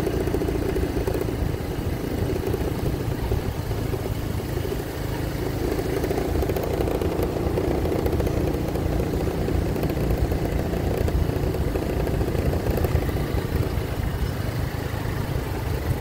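Motorcycle engine running steadily while the bike is ridden, with wind rumbling on the microphone.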